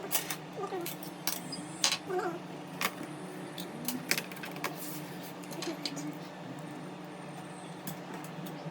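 Small metallic clicks and taps as the aluminium bottom cover of a 2012 13-inch MacBook Pro and its tiny screws are handled and fitted back on. The clicks come thick in the first five seconds, then thin out, over a faint steady hum.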